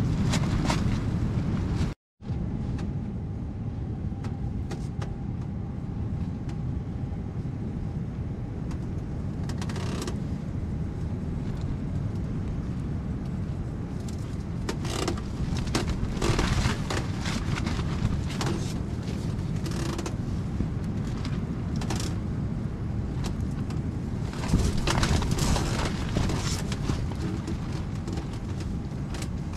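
Strong wind buffeting a hot tent, heard as a steady low rumble, with scattered short rustles and clicks. The sound drops out for a split second about two seconds in.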